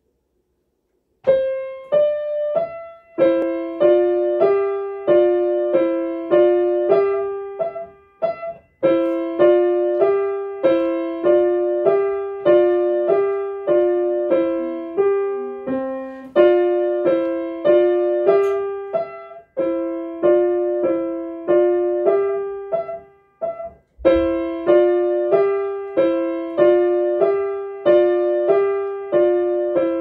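Yamaha grand piano playing a simple tune in the middle register. The notes come at an even pace, starting about a second in, with short breaks between phrases.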